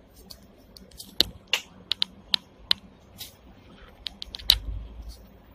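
Sharp, irregular clicks and knocks inside a Hong Kong double-decker tram's driver's end as it runs slowly. They come singly and in quick pairs, with a short low rumble near the end.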